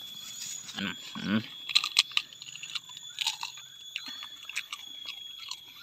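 A crispy fried snack being bitten and chewed, with a run of sharp, irregular crunches starting about two seconds in.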